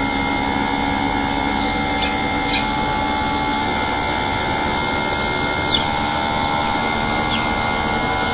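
A machine running steadily, a constant hum with several fixed tones, and a few faint ticks.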